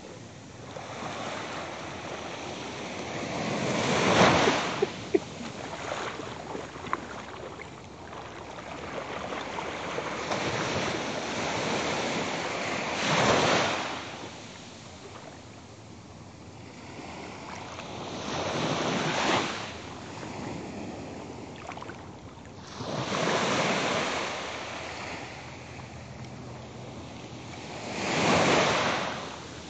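Small sea waves washing in at the shore, swelling and fading about every five seconds, with some wind on the microphone.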